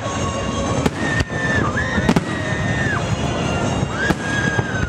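Aerial fireworks shells bursting overhead, several sharp bangs over a continuous rumble of the display.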